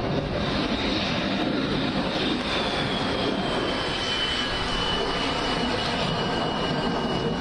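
Aircraft engine noise as a display aircraft flies past: a steady, dense engine sound with a high whine that slowly falls in pitch.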